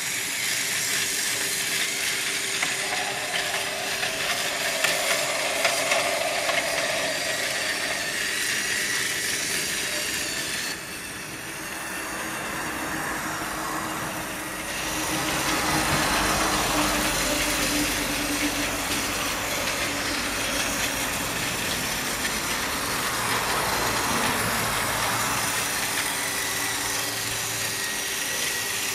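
Battery-powered Tomy Trackmaster toy locomotive running along plastic track pulling express coaches: a steady motor whir mixed with the noise of wheels on the track. The sound changes about eleven seconds in and again about fifteen seconds in.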